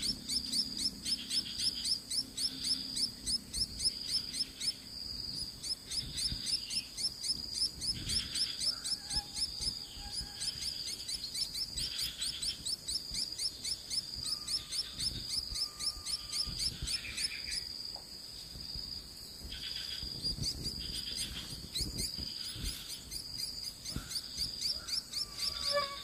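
Insect chirping in a fast, steady pulse that keeps up without a break, with softer irregular chirps now and then.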